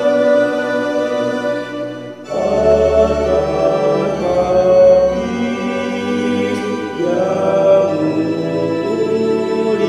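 Mixed four-part (SATB) choir singing a hymn with organ accompaniment in slow, held chords. The music dips briefly about two seconds in, then the next line begins over a deep bass note.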